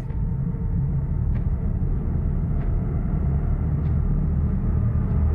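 A steady low rumble, with faint footsteps of hard shoes on a smooth floor about once every second and a quarter.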